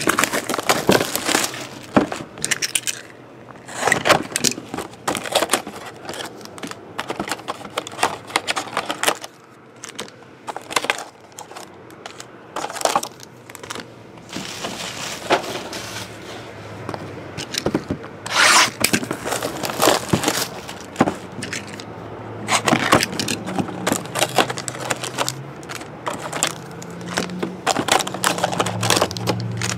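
Hands crinkling plastic shrink-wrap and foil trading-card packs, with packs being torn open, in irregular short bursts of crinkling and rustling.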